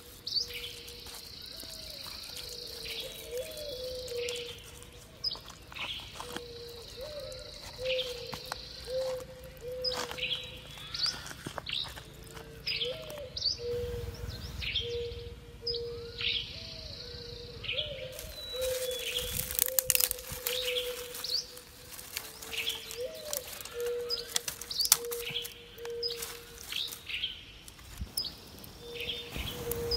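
Forest birds calling: a low hooting call repeats about once a second while other birds give sharp, high chirps. A steady high buzz runs through the first nine seconds.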